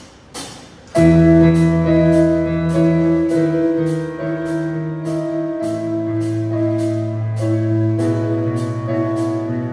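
Live band starting a song: a last count-in click, then about a second in the band comes in together with sustained chords over a bass line. A hi-hat keeps a steady beat of about two strikes a second.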